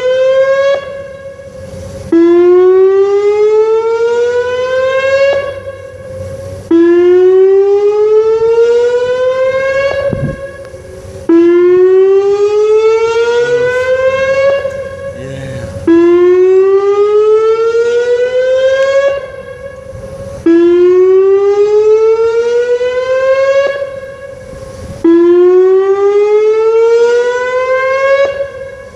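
Whelen WPS-2909 electronic outdoor warning siren sounding a test. Its tone climbs for a few seconds, drops back and climbs again about every four and a half seconds, swelling loud and falling away between climbs.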